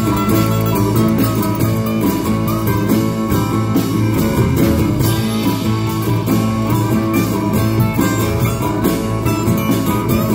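Live band playing an instrumental passage: strummed acoustic guitars with electric guitar and electric bass.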